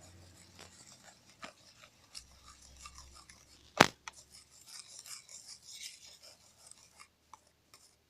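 Sticky shaving-foam slime mixture being stirred and worked, giving soft wet squishing and scraping sounds with small clicks, and one sharp knock a little under four seconds in.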